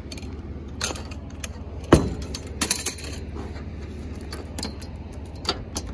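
Metal clanks and clinks as a chrome lamp and loose scrap metal are handled and set down on a wooden trailer deck. A sharp knock about two seconds in is the loudest, followed at once by a quick run of clinks, with a few lighter taps later on.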